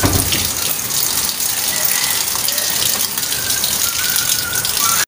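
Steady rain falling, an even, loud hiss that does not let up, with a faint thin tone here and there.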